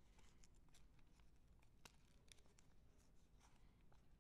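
Near silence with faint rustling and scattered soft ticks of folded origami paper being handled.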